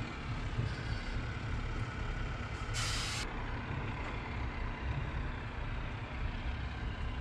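Steady low rumble of background noise, with one short burst of hiss lasting about half a second, about three seconds in.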